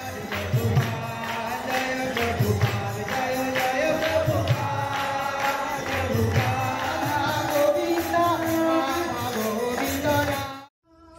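Devotional kirtan: a group of voices chanting to a steady beat of jingling hand percussion. It breaks off abruptly shortly before the end.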